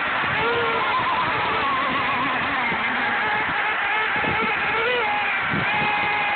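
Several gasoline radio-controlled sport hydroplane boats racing, their small two-stroke engines whining at high revs, several pitches overlapping and wavering up and down as the boats run the course.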